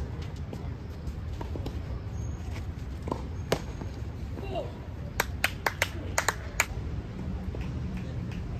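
Tennis ball struck by a racket, a sharp pop at the start and again about three and a half seconds in. About five seconds in comes a short, ragged run of about seven sharp claps, a few hands clapping as the point ends.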